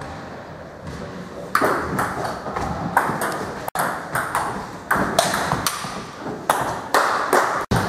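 Table tennis ball clicking sharply off paddles and table in a fast rally, about two hits a second, starting about a second and a half in.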